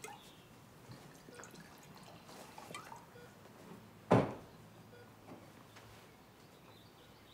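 Red wine being poured from a bottle into a wine glass: faint trickling and small clinks, then one short knock about four seconds in.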